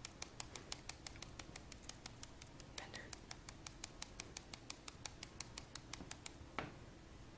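A phone button clicked over and over at about five or six presses a second, then a slightly louder click near the end. The service button is being pushed once for every second of call time wanted.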